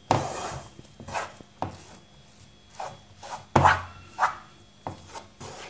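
Spatula scraping and pushing a thick paste of chickpea flour (besan) and ghee around a pan in irregular strokes while it roasts, the loudest stroke about three and a half seconds in.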